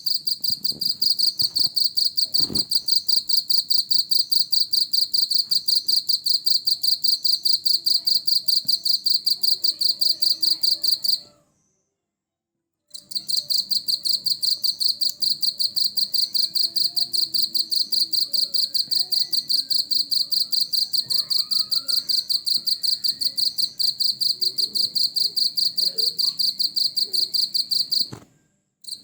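Cricket chirping: a loud, high-pitched, rapid and even train of pulses. It stops for about a second and a half near the middle and again briefly near the end.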